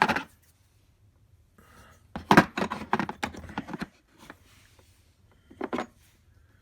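Steel attachments of an axle puller and slide hammer kit knocking and clinking together as the pieces are handled and fitted. There are three bouts: a brief clatter at the start, a longer run of knocks from about two to four seconds in, and a short one near the end.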